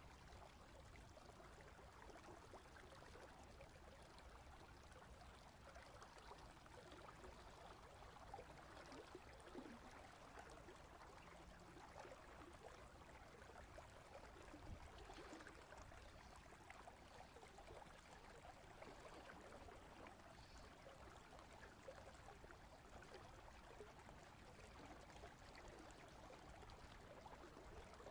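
Faint, steady flowing water of a river.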